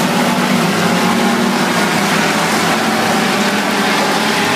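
Engines of several dirt-track race cars running at speed around the oval, blending into a steady, loud drone.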